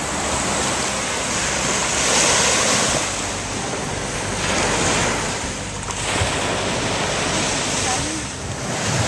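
Surf breaking and washing onto a beach, swelling and fading roughly every three seconds, with wind buffeting the microphone.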